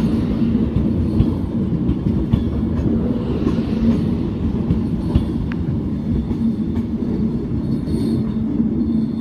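Class 390 Pendolino electric train pulling out of the platform: a steady low rumble and hum, with occasional faint clicks from the wheels.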